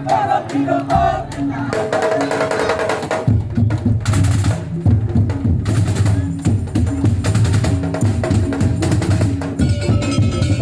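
Madurese daul (tong-tong) music: wooden slit drums knocking in a dense, fast rhythm over sustained melodic tones, with heavy deep drums coming in strongly about three seconds in.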